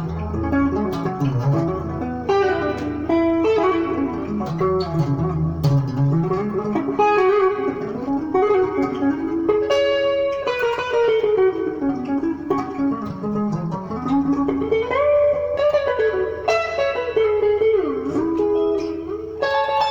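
Guitar playing a Congolese sebene lead: a continuous stream of quick picked notes in melodic runs that climb and fall, over a low bass line during the first six seconds or so.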